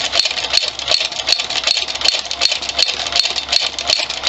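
Husqvarna Viking 2000 sewing machine running at half speed, sewing a cam-driven decorative stitch pattern through felt: a steady mechanical run with a regular click at each stitch, a little under three a second.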